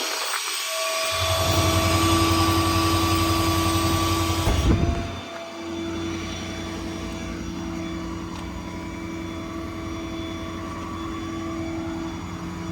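6.7 Powerstroke V8 diesel engine running at a steady raised idle with the PTO engaged. A brief gap near the start, then louder running with added hiss until about five seconds in, after which it settles to a slightly quieter steady hum.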